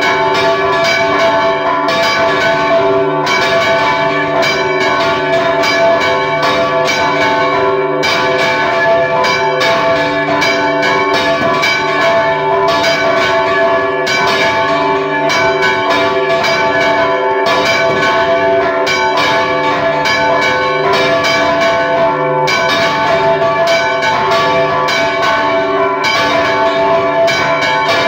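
Church bells rung in a repique, close up in the belfry: several bells struck by rope-pulled clappers in rapid, unbroken strokes, their tones ringing on over one another.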